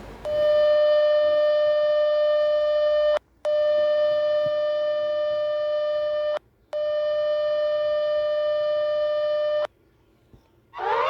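Electronic emergency-alert tone of a mock EAS alarm: three long, steady, buzzy blasts of about three seconds each, separated by two short breaks.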